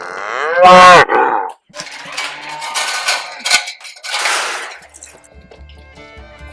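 Angus cattle: one cow bellows a single loud moo about half a second in, rising in pitch and then held. A few seconds of noisier sounds with sharp metallic clanks follow, and background music begins near the end.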